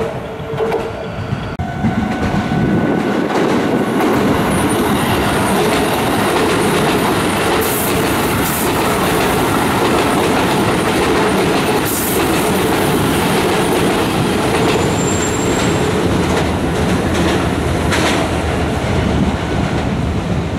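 Keisei electric commuter train passing close by on a curve: a steady rumble of wheels on rail that builds about two seconds in, with wheel clatter over the rail joints and a few sharp knocks standing out.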